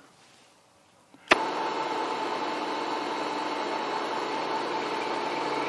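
Milling machine switched on with a sharp click about a second in, then its spindle motor running steadily with a whine, turning a small chamfering bit.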